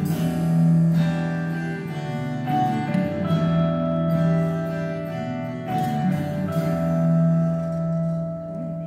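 Live worship band's acoustic and electric guitars playing slow, held strummed chords, fading near the end.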